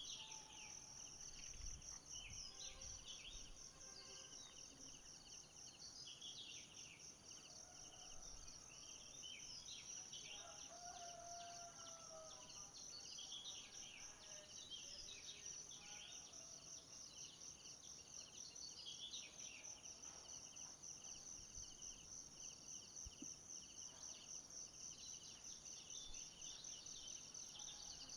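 Faint forest ambience: a steady high, rapidly pulsing insect trill, with birds giving short chirping calls scattered through, most of them in the first two-thirds.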